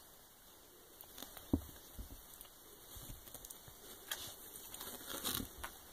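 Soft scuffling and rustling of bedding as a kitten and a pit bull play-fight on a bed, with light taps throughout. A dull thump about a second and a half in is the loudest sound, and the rustling grows busier near the end.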